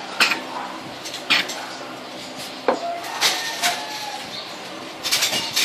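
Six-week-old Belgian Malinois puppies eating from a shared round feeding pan: sharp clinks and clatters of the pan and kibble as they jostle, scattered through and busiest near the end, with a brief squeak about halfway through.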